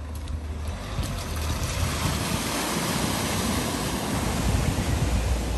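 Small van driving through a flooded ford, its tyres throwing up a heavy wash of floodwater that grows louder from about a second in.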